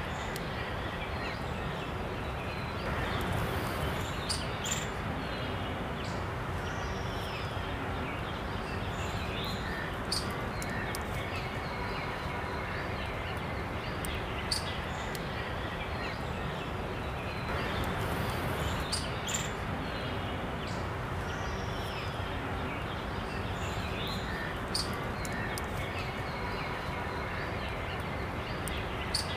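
Steady outdoor background noise with occasional short bird chirps and faint sharp clicks; the noise swells slightly twice.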